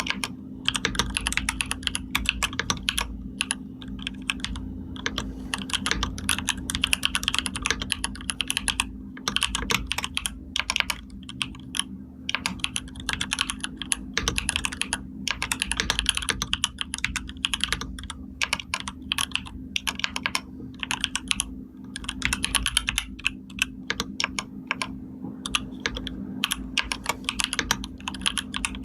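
Fast typing on a computer keyboard: rapid runs of key clicks broken by short pauses, over a steady low hum.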